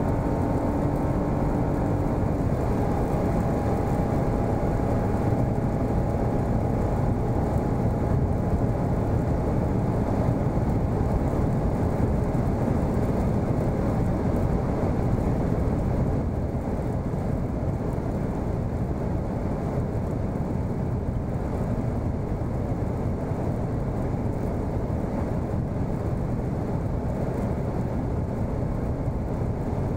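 Steady cabin roar of a 2017 Suzuki Swift 1.0 Boosterjet (turbocharged three-cylinder, six-speed automatic) running flat out near its top speed of about 180 km/h: wind and tyre noise over the engine. The engine's drone stands out only in the first few seconds, and the roar drops slightly about halfway through.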